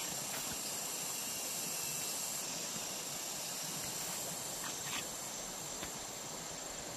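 Steady outdoor background hiss with a thin, high, unbroken tone above it and a few faint clicks.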